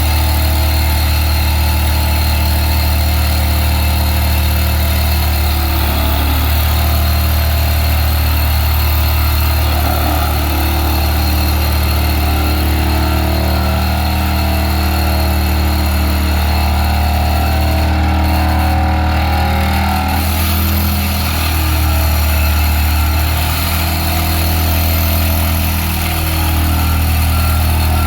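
Excavator-mounted side-grip vibratory pile driver and its excavator running: a loud, steady low drone with steady engine tones above it, dipping slightly a few times near the end.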